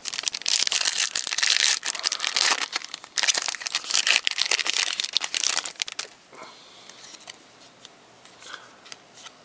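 Foil trading-card pack wrapper crinkling and tearing as it is handled and opened. There are two loud stretches of about three seconds each, and it stops about six seconds in, leaving a few faint rustles.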